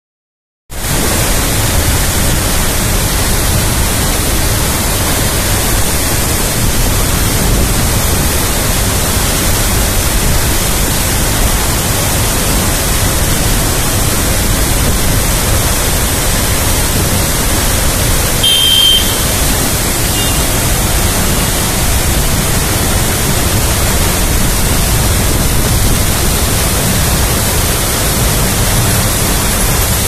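Waterfall crashing onto rocks at close range: a loud, steady, unbroken rush of falling water, heavy in the low end.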